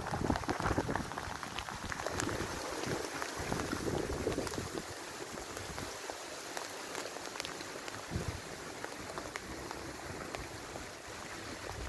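Hail and rain falling steadily on pavement and street: a hiss dotted with many small sharp ticks. A low rumble under it fades out about five seconds in.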